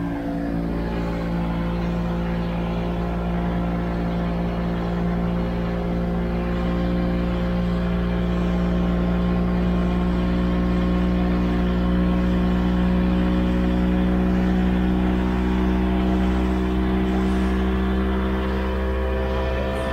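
Boat engine running steadily, its hum swelling slightly in the middle and easing off again.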